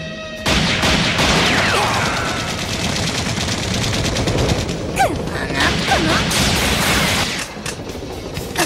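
Rapid automatic gunfire, a long run of fast shots in an animated action soundtrack, easing off about seven and a half seconds in.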